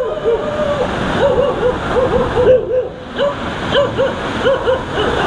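Surf washing on a beach, with a run of short, arching hoot-like calls, several a second in clusters, over the top.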